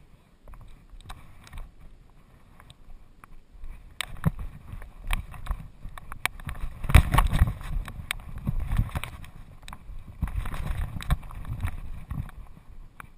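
Knocking, rubbing and clicking picked up by a GoPro strapped to a walking dog's back: its footfalls on rock and the harness jostling against the camera. It grows busier partway through and is loudest about seven seconds in.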